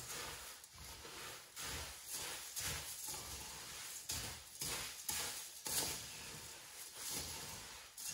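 A wooden spatula stirring and tossing puffed rice in a metal karahi, coating it in melted jaggery. The grains rustle and the spatula scrapes the pan in rhythmic strokes, about one a second.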